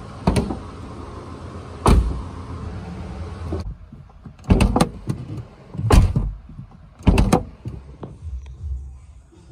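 Porsche 986 Boxster door handle and door latch being worked: a series of sharp clicks and clunks, about six in all, as the handles are pulled and the lock releases and catches. Under the first few seconds there is a steady hum that cuts off suddenly.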